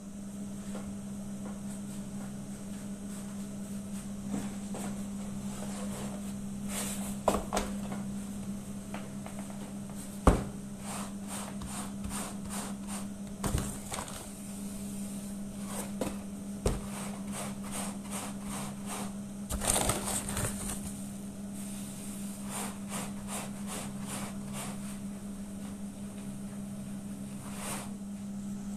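Hands working a ball of semolina dough on a wooden board, giving scattered light taps and pats with a sharper knock about ten seconds in and a busier patch of rustling around twenty seconds. A steady low electrical hum runs underneath.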